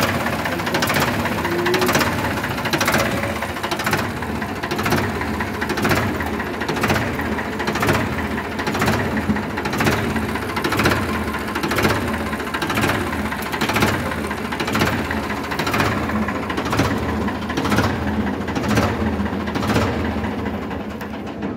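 Ford 3600 tractor's freshly overhauled three-cylinder diesel engine idling steadily, with a regular beat about once a second.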